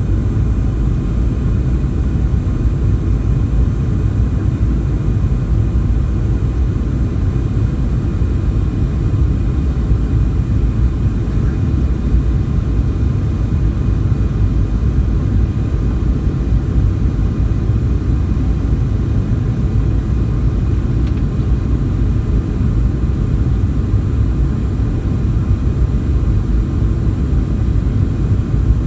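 Jet airliner noise: a steady low rumble of engines and airflow, with faint steady engine tones above it, as during a landing.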